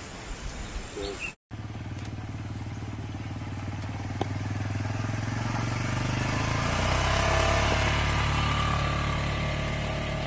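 A motor vehicle's engine running steadily, growing louder and shifting to a lower pitch about seven seconds in.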